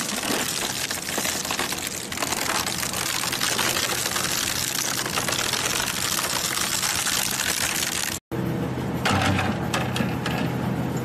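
Double-shaft shredder's toothed cutter discs crunching and cracking through hard red plastic waste: dense, continuous crackling of plastic breaking over the machine's low hum. The sound breaks off for an instant about eight seconds in, then carries on with the hum more prominent and lighter crunching.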